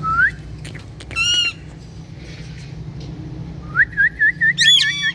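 Green parrot whistling and calling: a short rising whistle at the start, a squawk about a second in, then a quick run of about five short whistled notes near the end that ends in a louder call. A steady low hum runs underneath.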